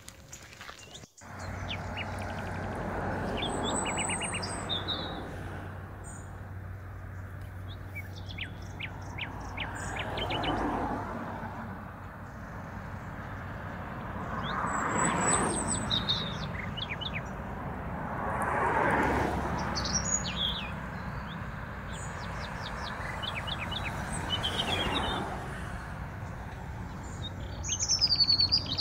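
Small birds chirping and twittering in short high calls and trills, over a low steady hum and vehicles passing every few seconds.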